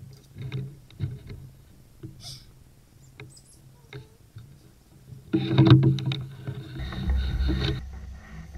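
Light knocks and taps on a skin-on-frame canoe as the people in it shift about. About five seconds in, a louder stretch of rustling and bumping noise starts and cuts off sharply, with a low rumble underneath near the end.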